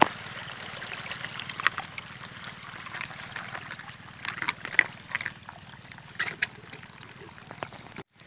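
Scattered plastic clicks and knocks from the lid, cap and strainer of a battery-powered knapsack sprayer being handled.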